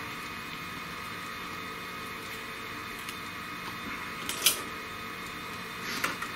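Small clicks and knocks as 3D-printed plastic parts and their removable build plate are handled, over a steady background hum: one sharp click about four and a half seconds in and a couple of knocks near the end as the plate is set down on the desk.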